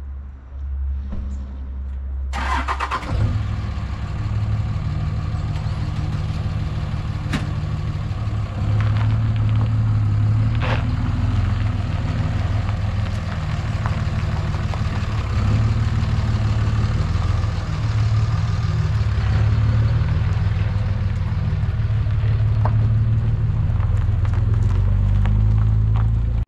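Heavy-duty pickup truck engine running as it tows a boat trailer slowly past, starting suddenly about two seconds in and growing louder as it nears.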